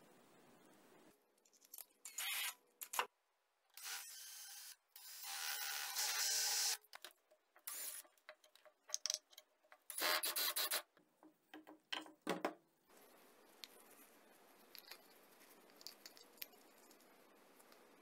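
A drill boring holes through a plastic canister cap in a few short bursts, the longest lasting nearly two seconds. Scraping and rubbing of plastic comes between the bursts, and from about thirteen seconds in only a faint steady background remains.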